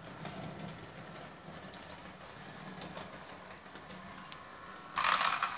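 Model railway train running on the layout's track: a steady whirr with light clicks, much louder about five seconds in.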